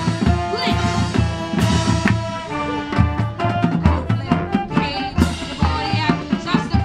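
High school marching band playing: brass and winds holding notes over marching percussion, with a flurry of rapid drum strokes from about three seconds in.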